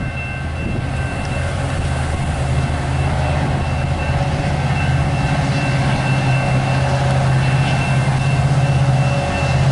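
Canadian National diesel freight locomotives approaching, their engines a steady low rumble that grows louder as they draw near. A few faint, steady high-pitched tones sound above it.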